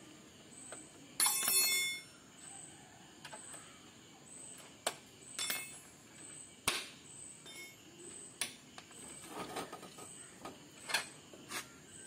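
Metal hand tools clinking at a motorcycle's front wheel axle as the axle nut is undone with a ring spanner. About a second in there is one short, bright metallic ring, followed by scattered sharp clicks of steel on steel.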